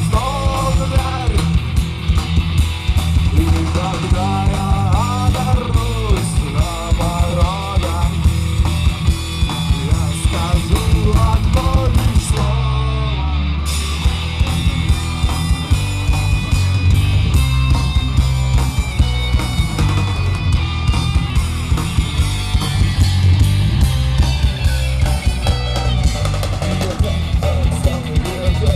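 Rock cover music: a guitar melody over a steady drum-kit beat, bass and backing guitar.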